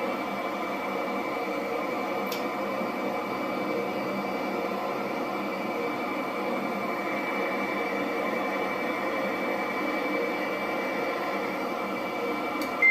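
Steady jet engine noise with a thin high whine held throughout, unchanging in level.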